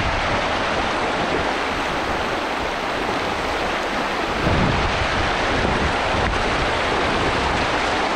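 Fast river current rushing steadily, a strong flow over shallow rocks, with wind buffeting the microphone now and then, most noticeably about four and a half seconds in.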